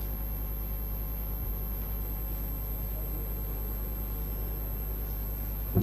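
Steady low hum and hiss of a large hall's background and sound system, with one short knock just before the end.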